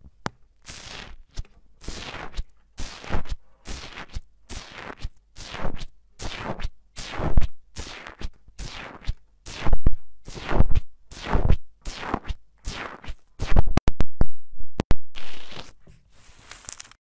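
Metal tool end poked over and over into foamy, bubbly slime, each press a brief falling squelch, about two a second. A few sharp clicks come near the end.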